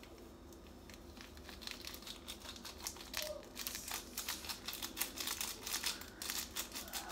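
Instant ramen seasoning packet crinkling as it is shaken and squeezed over the pot, a rapid rustle that grows louder and busier about two seconds in.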